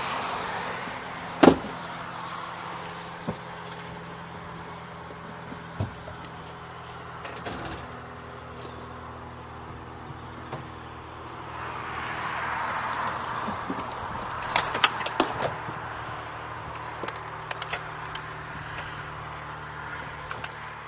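Knocks, clicks and taps from handling the open cockpit and airframe of a MiniMax ultralight. There is one sharp knock about a second and a half in and a cluster of clicks about two thirds of the way through, all over a steady low hum.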